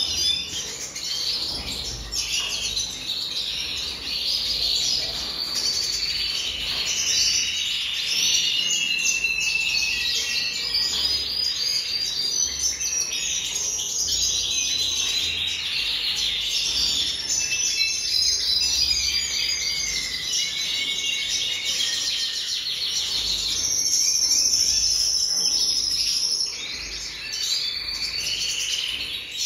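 Male red siskin singing: a long, unbroken twittering song of rapid chatters and buzzy trills, with a higher buzzy trill about twenty-four seconds in.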